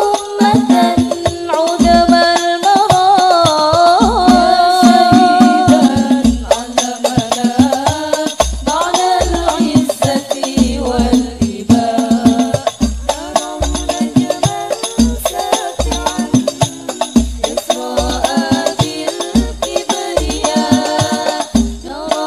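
Women's voices singing an Islamic devotional sholawat song into microphones, over hadroh percussion: deep frame-drum beats in a steady rhythm with a rattling, jingling layer on top.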